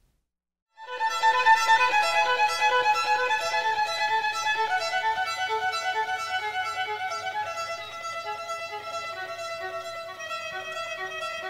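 Instrumental music over the end credits, starting about a second in after a moment of silence, with a quick run of notes.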